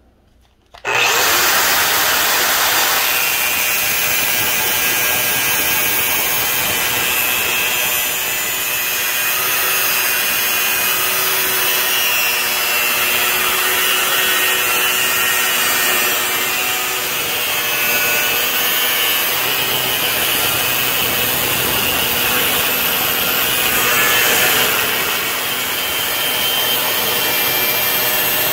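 Angle grinder with a thin cut-off disc slicing through the steel of an old circular saw blade. The cut starts abruptly about a second in and stays loud and continuous.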